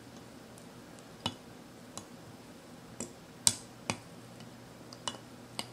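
Faint, irregular small clicks and ticks, about seven in a few seconds, from hands working thread and crystal flash on a hook held in a fly-tying vise.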